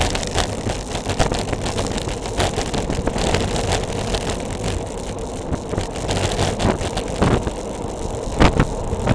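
Bicycle descending a steep road at speed: a steady rush of wind and tyre noise, with a few short knocks from bumps in the road near the end.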